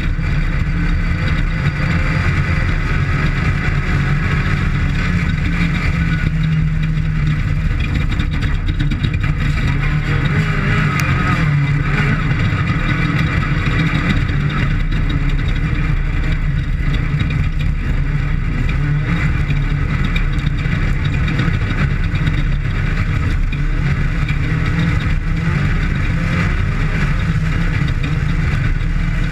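Off-road desert race vehicle's engine running hard and steadily during a qualifying lap, with a constant noisy hiss over the engine note.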